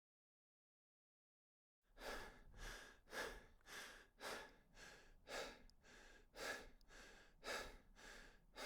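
A person's breathing, heavy and rhythmic at about two breaths a second, starting about two seconds in after dead silence.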